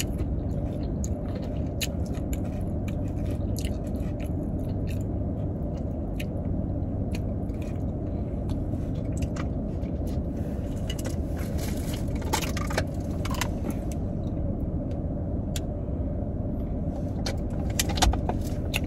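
Steady low hum of a parked car's idling engine and air conditioning, heard from inside the cabin. Scattered small clicks and scrapes of a plastic fork in a food cup, with some chewing, sit over it.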